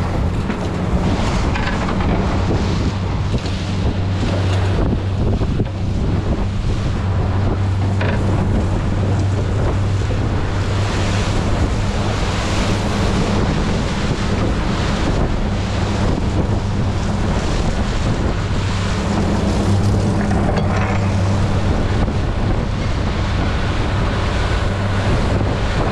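Fishing panga's outboard motor running steadily at speed, a constant low hum, under the rush of water along the hull and wind buffeting the microphone.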